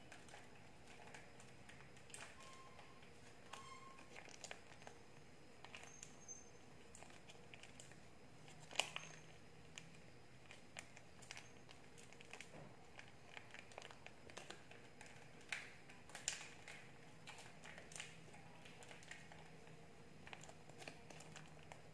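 Faint crinkling and clicking of a plastic mayonnaise dressing sachet being squeezed and handled. The scattered crackles include a sharper one about nine seconds in and another near sixteen seconds.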